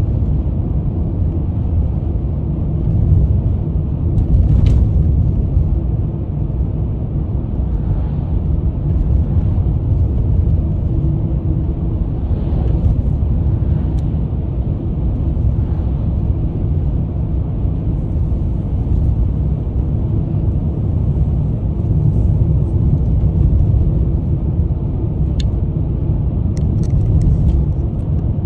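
Steady low rumble of road and engine noise inside a moving car's cabin, with a few faint clicks near the end.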